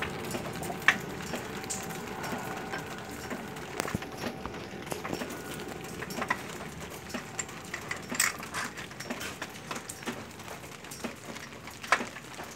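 Scattered light clicks and knocks of metal parts being handled as a new poly-V belt tensioner is set in place on the engine, a few seconds apart.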